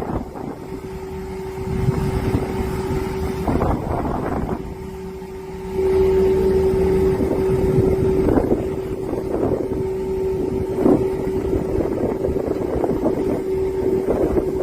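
A steady humming tone over rough wind-like rumble that buffets the microphone, getting louder about six seconds in.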